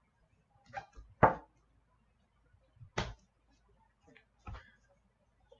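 About four short, sharp knocks and taps, the loudest a little over a second in, from trading cards and their box being handled and set down on a table.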